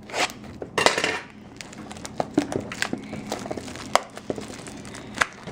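Plastic shrink-wrap on a sealed box of trading cards crinkling as it is sliced and pulled open, with scattered crackles and a few sharp clicks.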